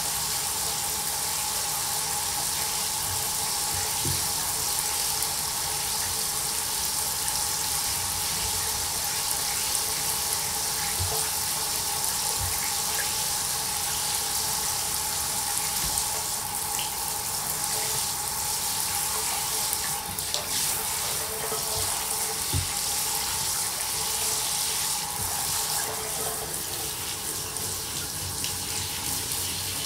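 Water running steadily into a bathtub from the tub tap and hand shower, a continuous rush and splash.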